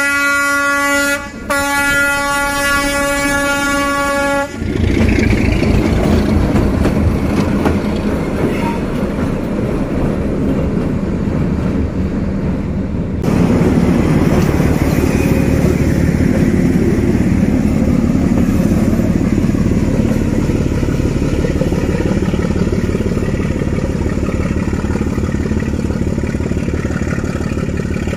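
D12E diesel locomotive sounding its horn: a long blast with a short break about a second in, lasting about four and a half seconds. It is followed by the locomotive's engine running loud and the steady rhythmic clatter of the train passing, which grows louder about thirteen seconds in.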